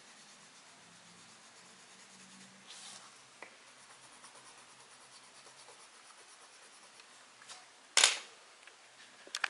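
Faint scratching of a Giotto black colored pencil shading and drawing strokes on paper. About 8 s in, a loud brushing thump as a hand rubs against the camera's microphone, and a smaller one near the end.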